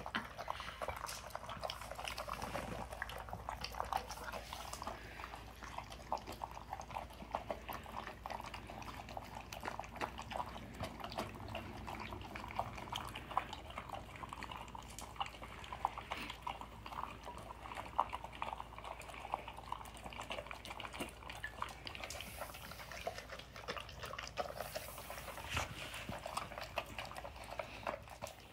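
Basset hounds eating from ceramic bowls: a steady stream of quick crunching and chewing sounds as they chomp through dry dog food.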